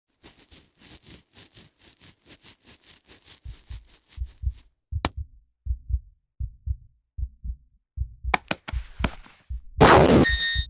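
A sequence of sound effects: a fast run of sharp ticks, about five a second, for roughly four seconds, then slow, heartbeat-like low thumps about twice a second with a few sharp clicks among them, ending in a loud burst of noise near the end.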